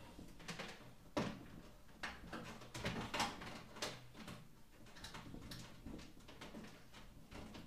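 Irregular light clicks and knocks of hands fitting aquarium equipment and its power cords, with a sharper knock about a second in and another about three seconds in.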